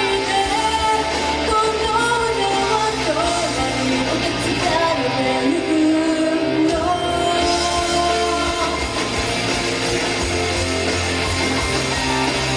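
Female vocalist singing a J-rock/pop song live over loud rock backing music. The singing drops out after about seven seconds, leaving the instrumental.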